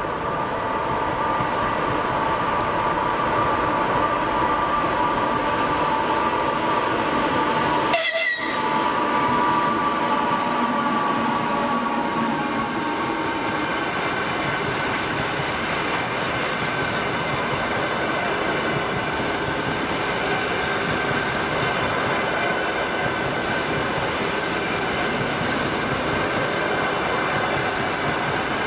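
An EP2K electric passenger locomotive hauling an express passenger train runs past, followed by its coaches rolling by with steady wheel and rail noise. A steady high two-note tone is heard over the first half and fades out about halfway through. The sound drops out briefly about eight seconds in.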